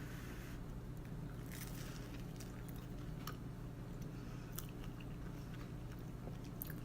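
Someone biting into and chewing a grilled cheese sandwich dipped in tomato soup: faint, scattered crunches and mouth sounds over a steady low hum.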